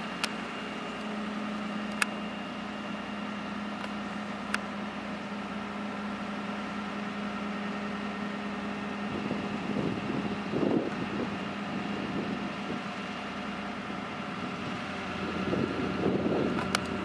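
Engine of construction machinery running steadily at a low hum, with a few sharp clicks of work on the lift tower. A rougher, louder noise swells briefly about ten seconds in and again near the end.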